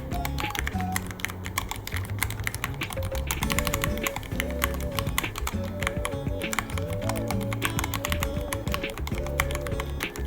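Continuous fast typing on a Ducky One 3 mechanical keyboard, a dense run of key clicks without pause, over background music.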